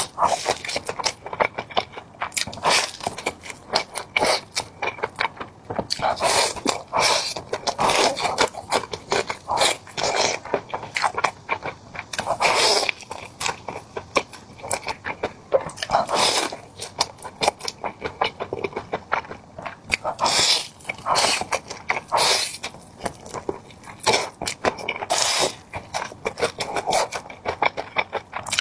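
Close-miked eating: loud, irregular crunches of crispy fried chicken being bitten and chewed, one after another.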